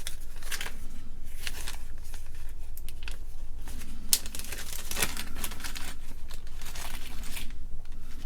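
Irregular crinkling and rustling of packaging, with scattered light clicks, as small electronic parts are handled.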